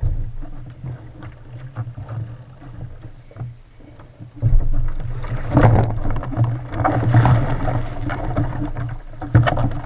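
Wind buffeting a kayak-mounted camera's microphone, with choppy sea water slapping and splashing against the kayak hull. It gets much louder about four and a half seconds in.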